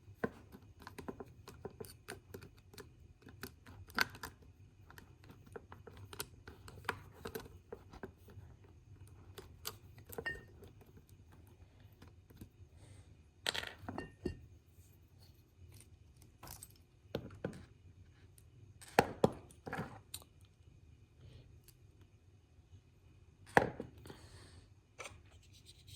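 Small plastic model-locomotive parts being pried apart and handled: scattered light clicks and taps, with a few sharper clicks about halfway through and near the end, as the truck side frames are taken off.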